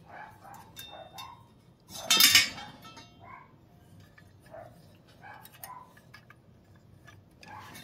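Small metal clicks and clinks from handling a boiler pilot burner assembly and a thermocouple's coiled copper lead, with one loud rattling clatter about two seconds in.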